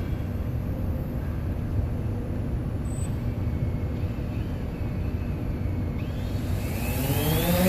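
Steady low outdoor rumble, with a motor starting to rise in pitch near the end.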